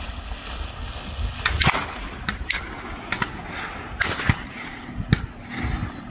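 Several shotgun shots from duck hunters, the loudest nearly two seconds in and about four seconds in, each ringing briefly. Underneath, a retriever splashes as it bounds into the lake and swims out.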